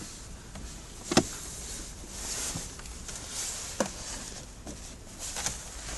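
Hands handling car interior parts: a few sharp clicks and knocks, the loudest about a second in, over a steady hiss.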